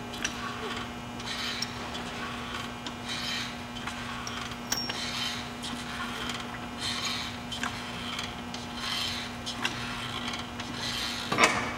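Hydraulic jack being pumped in rhythmic strokes, about one a second, each stroke a rasping rub with light clicks, as it lifts a heavy pedestal tie bar into place on a locomotive truck. A steady low hum lies underneath.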